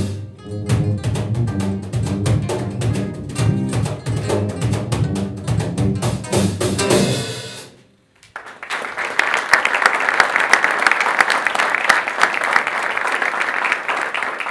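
A live trio of electric bass, acoustic guitar and percussion playing the close of a piece, ending on a final note about seven and a half seconds in. After a moment's quiet, audience applause.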